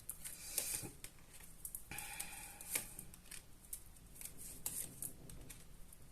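Tarot cards being shuffled and laid out: faint scattered rustles and light taps of the cards.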